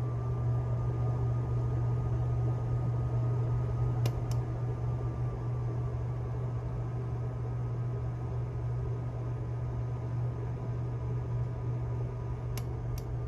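1962 Hunter (Robbins & Myers) R-52 ceiling fan running: a steady low motor hum with a faint high whine over it. Two light clicks about four seconds in, and two more near the end.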